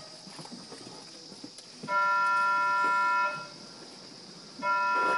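Two long, steady horn-like signal tones, each about a second and a half, a little over a second apart: the Eizan Ropeway's departure signal sounding at the summit station, heard from inside the cabin.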